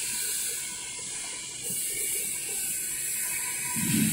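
Vertical CNC machining center milling a metal workpiece with an end mill: a steady high hiss with cutting noise, and a brief louder low rumble near the end.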